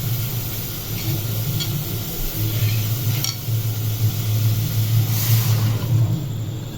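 Wet semolina and rice-flour batter hitting a pan of spices frying in oil: a sizzle, with a spoon stirring and a few sharp clicks against the pan, a louder burst of hiss about five seconds in, and a steady low hum underneath.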